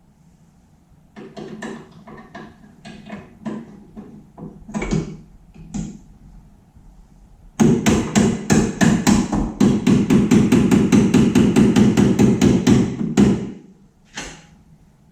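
Scattered knocks and clatter of tools on metal parts, then, about seven and a half seconds in, a loud, fast, even run of hammer blows, about six a second, lasting some five seconds and stopping abruptly.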